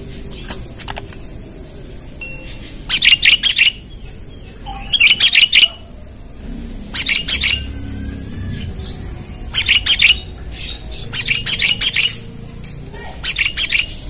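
Sooty-headed bulbul (kutilang) calling in about six short bursts of quick chirping notes, a challenge call used as a lure to draw rival bulbuls. A steady faint high whine runs underneath.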